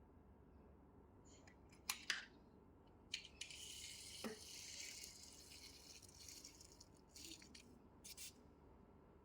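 Faint handling noises: a few sharp clicks about two seconds in and again near the end, and a soft hissing rustle lasting about three seconds in the middle.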